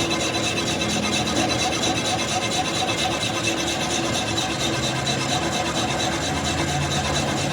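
Steady mechanical noise with a low hum that shifts pitch a few times.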